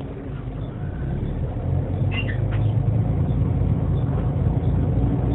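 Bus 30941's engine and drivetrain running and growing louder, recorded for its bad differential. A brief squeak comes about two seconds in.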